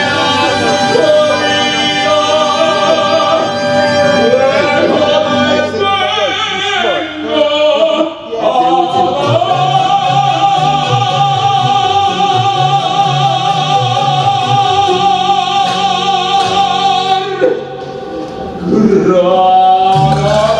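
A male singer performing with a band, holding one long note for about eight seconds in the middle. The music thins out briefly near the end before a steady beat comes back in.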